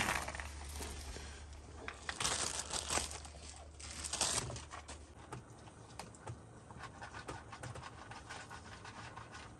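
Dry kibble pouring from a plastic bag into a paper bowl at the start, then a dog eating it: soft, irregular crunching and chewing clicks.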